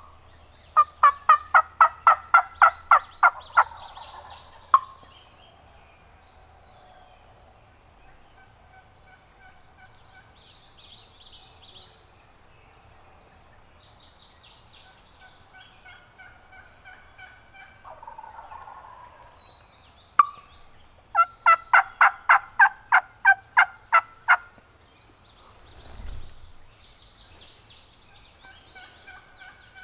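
A turkey calling in two long series of yelps, about four notes a second and each lasting a few seconds, one near the start and one about two-thirds of the way in, with songbirds chirping faintly. A dull thump comes near the end.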